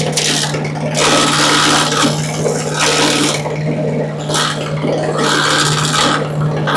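Small gas-powered 3-inch wood chipper with its engine running at a steady hum, and three loud bursts of shredding noise as branches are fed in and chipped.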